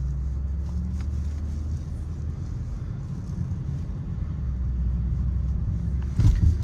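Car's engine and tyres rumbling steadily while driving on a snowy road, heard from inside the cabin. A brief thump about six seconds in.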